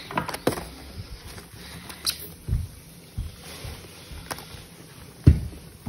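Irregular knocks and thumps from live lobsters being handled in a styrofoam shipping box lined with paper, about half a dozen, with the loudest thump near the end.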